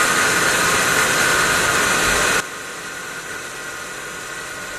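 Milling machine running, its end mill cutting a carbon brush blank to size: a loud, steady noise that drops sharply in level about two and a half seconds in and runs on quieter.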